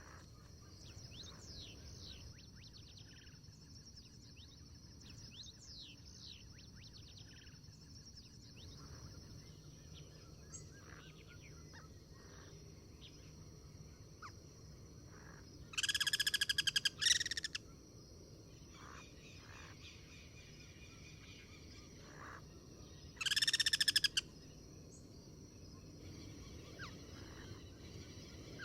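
Guira cuckoos calling: two loud, harsh, pulsed calls, the first in two parts a little past halfway and the second several seconds later. Between them come faint chirps from other birds, over a steady high buzz.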